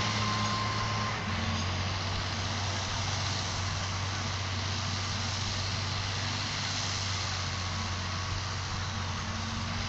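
An engine running steadily, a constant low hum over an even hiss, with no change in speed.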